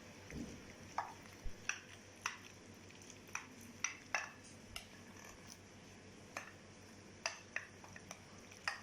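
Light, irregular clinks and clicks of a utensil against a baking dish of hot baked pasta, about fifteen scattered taps.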